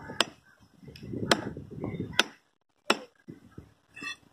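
Long heavy knife chopping red snapper pieces on a wooden log block: four sharp chops, about a second apart, with a short pause before the last one.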